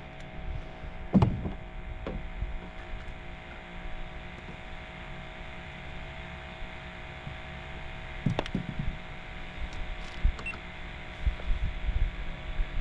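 Electric motor on a fishing kayak running with a steady whine, with two sharp knocks, the louder about a second in and another at about eight seconds, and a few dull thumps near the end.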